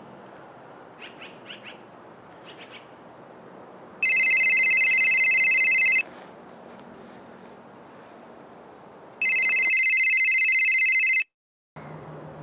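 A mobile phone ringtone rings twice, each ring a loud electronic trill lasting about two seconds. Before it come a few short bird chirps over a steady outdoor background. The second ring cuts off abruptly into a brief dropout.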